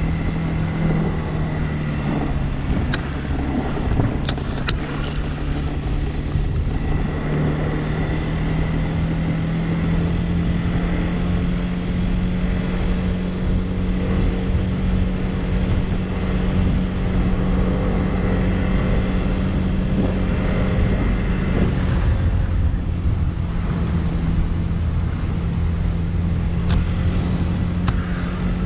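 100cc motorcycle engine running at a steady riding speed, its note rising a little in the first few seconds and then holding even.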